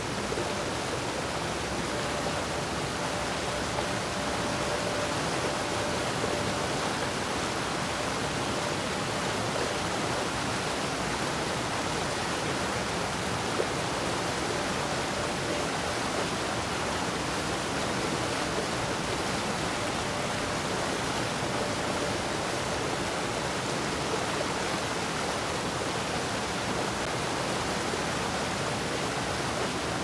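Waterfall: a steady, unbroken rush of falling water that holds an even level throughout.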